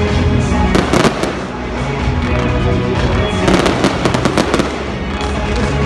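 Fireworks going off in two clusters of rapid pops and crackles, one about a second in and a longer one from about three and a half seconds, over loud music.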